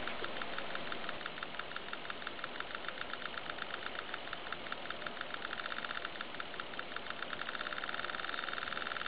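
Homemade 555-timer engine-sound emulator in a 1:48 Tamiya P-51D model, giving a buzzy train of clicks that starts at several a second and speeds up until the clicks run together into a continuous buzz near the end. It sounds more like a First World War rotary engine than a P-51's engine.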